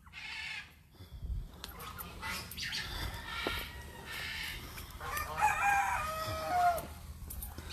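Chickens calling, with a rooster crowing once about five seconds in, a stepped call about a second and a half long that is the loudest sound.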